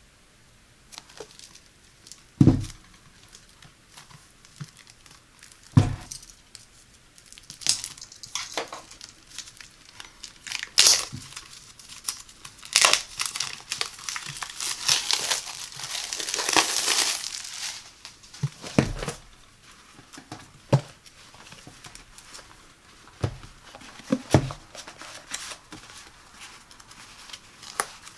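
Clear plastic shrink-wrap crinkling and tearing as it is pulled off a stack of ruled paper pads, in a dense crackling stretch through the middle. Several dull thumps, the loudest near the start, as the pads are handled and set down.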